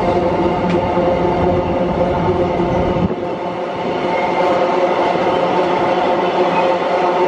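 Diesel-electric freight train passing close by: a steady, loud drone of several held tones over the rumble of wheels on rail. The deep low rumble drops away suddenly about three seconds in while the droning tones carry on.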